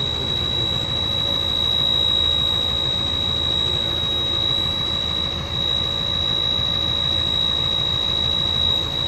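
Sany crane's Shangchai common-rail diesel engine idling steadily, heard from inside the cab, with a steady high-pitched whine over the engine note.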